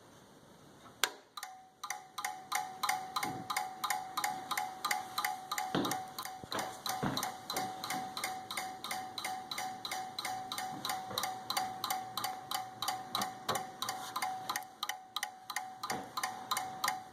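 Desktop PC clicking rapidly and evenly, about three clicks a second, over a steady tone, starting with a sharper click about a second in. The clicking comes with the PC's lights flickering.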